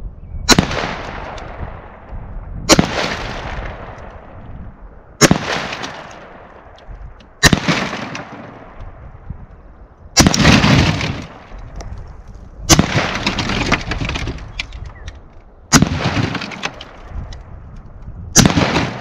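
A 5.56 NATO rifle firing 62 grain steel core penetrator rounds, eight shots at a steady pace about two to three seconds apart, each followed by a long rolling echo.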